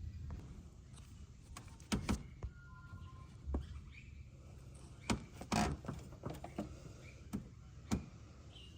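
Scattered clicks and knocks of tools and metal engine parts being handled during hands-on engine work, over a low steady hum.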